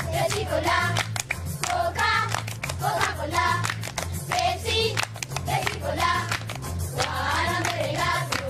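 A song with singing voices over rhythmic hand clapping and a repeating bass line.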